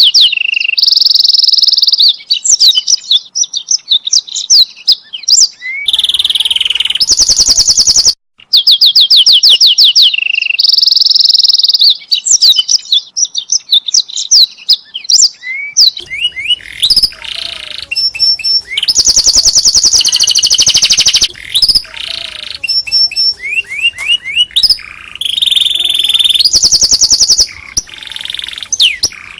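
Domestic canary singing loudly, a long song of rapid repeated trills and chirps, high-pitched, broken only by a very short gap about eight seconds in.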